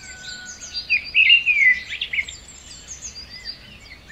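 Outdoor birdsong: several small birds chirping and whistling in short notes and trills, with a louder run of chirps about a second in.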